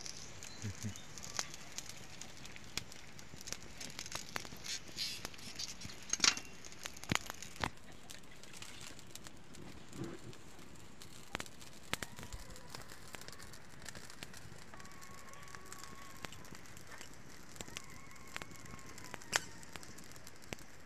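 Wood fire crackling under monitor lizard meat grilling on a wire rack, with sharp pops scattered throughout, more frequent in the first several seconds.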